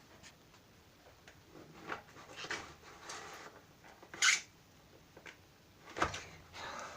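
Hands working a non-Newtonian fluid in a container: irregular soft rubbing and scraping, with a sharper, hissing scrape about four seconds in and a knock about six seconds in.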